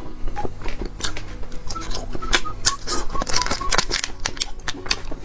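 Small plastic food packet crinkling and being torn open by hand: a dense, irregular run of sharp crackly clicks.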